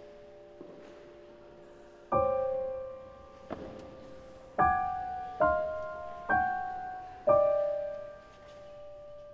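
Slow, sparse piano music: about six single notes struck one at a time, roughly a second apart, each left to ring and fade.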